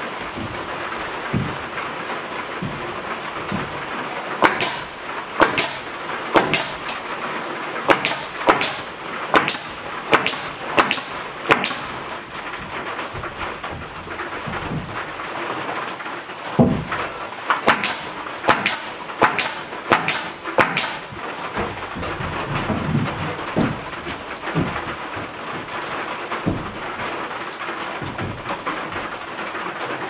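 Rain falling steadily on a metal roof, an even hiss, with many sharp ticks and knocks that come in two runs, one starting about four seconds in and one about seventeen seconds in.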